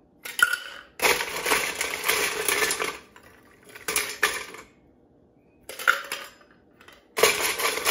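Ice cubes scooped from a stainless steel ice bucket and dropped into a metal cocktail shaker, clattering: a long rattle from about one to three seconds in, a few short clinks around four and six seconds, and another pour near the end.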